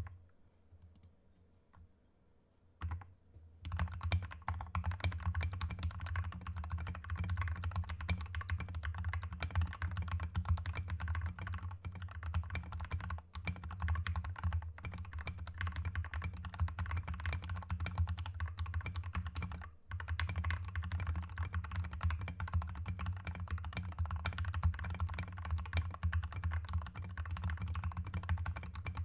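Typing on an MK870 mechanical keyboard with lubed Gateron Yellow linear switches and Akko ABS SAL-profile keycaps. A few scattered keystrokes, then fast continuous typing from about three and a half seconds in, with two brief pauses.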